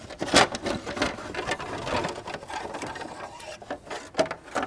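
Plastic fan shroud and viscous cooling fan being worked up out of the engine bay by hand, giving a run of quick plastic clicks, knocks and scraping against the radiator and surrounding parts.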